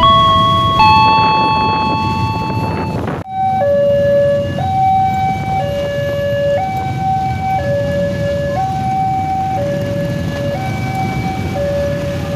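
Railway level-crossing warning alarm sounding for an approaching train. First a chime of struck notes stepping up and down in pitch, then, after a sudden break about three seconds in, an electronic two-tone alarm alternating between a higher and a lower tone about once a second. A low rumble of road traffic waiting at the crossing runs underneath.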